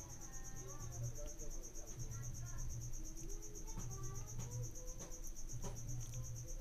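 A cricket chirping steadily in a high, fast-pulsing trill. A steel ladle clicks and scrapes against the aluminium pot a few times as the onion and tomato are stirred.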